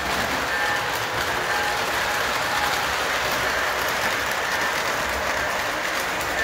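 Model freight train's cars rolling along the layout track: a steady, even rolling noise.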